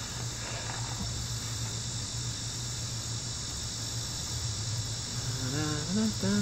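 Steady high-pitched chirring of insects, crickets or the like, with a steady low hum beneath it.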